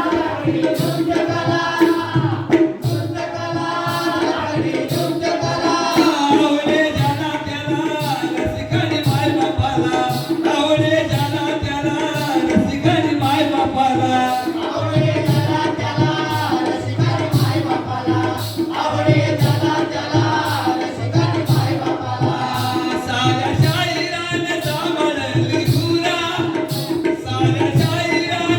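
Jakhadi folk song: a singing voice with a steady drone underneath, and a hand drum and cymbals keeping an even beat of about one to two strikes a second.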